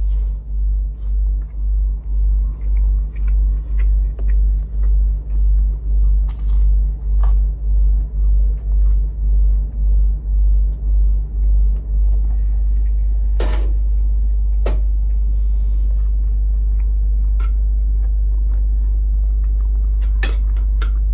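A loud, low rumbling hum that pulses about twice a second, then settles into a steady drone about twelve seconds in, with a few faint clicks over it.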